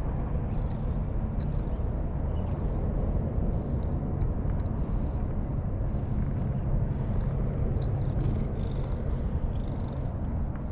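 Cat purring steadily close to the microphone, a continuous low rumble.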